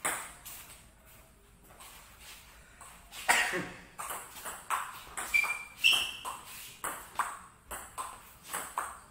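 Table tennis rally: a plastic ball clicking off rubber paddles and the table in a quick, even run of about two to three hits a second, starting with a loud serve strike a little over three seconds in. Two short high squeaks come about halfway through.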